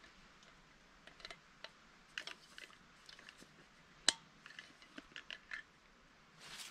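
Light clicks and rattles of small stove parts being handled and fitted together, a Dragoon Sabot II backpacking stove and its stand, with one sharp click about four seconds in.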